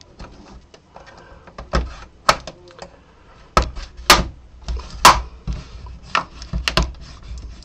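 Plastic snap clips of an AOC i2369vm monitor's case popping loose as the case is prised apart: a run of sharp, irregular plastic clicks and snaps, the loudest about halfway through.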